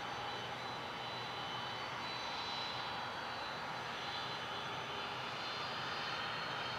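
Boeing 747-400 cargo jet's four turbofan engines running at low power as it taxis: a steady jet hum with high whining tones that drift slightly in pitch.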